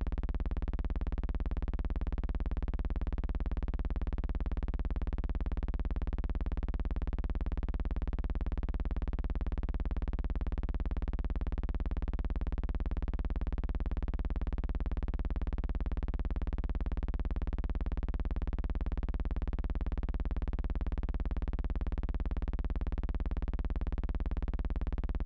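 Steady, unchanging low electronic drone: a stack of held tones that neither moves in pitch nor changes in loudness, starting and stopping abruptly.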